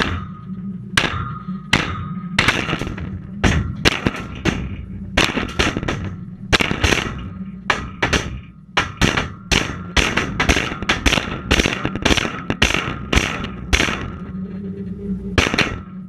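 A hammer repeatedly striking a dishwasher, about two or three blows a second, each with a metallic ring, heard from inside the tub, over a steady low hum. The blows stop briefly near the end, then one more comes.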